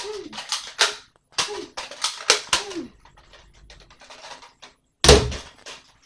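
Video game gunfire: a quick run of sharp gunshot cracks, thinning out after about three seconds, with one much louder, heavier bang about five seconds in.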